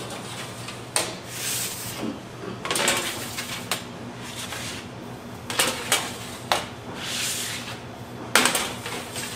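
Knocks and clatter of bakery production work over a steady machine hum. Sharp knocks come about a second in and several more follow, the loudest near the end, with a few short hissing rushes between them.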